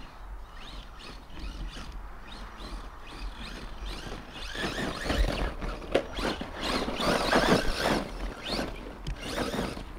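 1/10 brushless RC monster truck driving hard on loose, dry ploughed soil, its tyres spinning and churning up dirt as it tries for a donut. It gets louder about halfway in, with rough crackling from the tyres and spraying soil.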